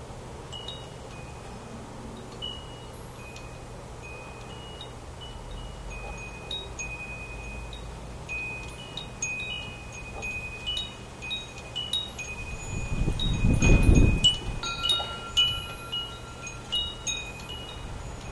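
Wind chimes ringing, with single high notes at first and more overlapping strikes in the second half. A steady low hum runs underneath, and a brief swell of low rushing noise about thirteen seconds in is the loudest moment.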